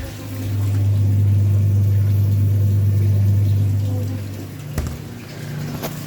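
Refrigerator compressor giving a loud, steady low hum that swells up, holds for about four seconds and fades away, followed by two sharp clicks.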